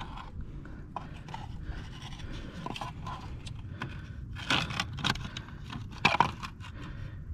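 Scraping and clicking of a plastic Flume 2 water-flow sensor being pushed and fitted against a water meter in its box, with a few louder scuffs about four and a half and six seconds in.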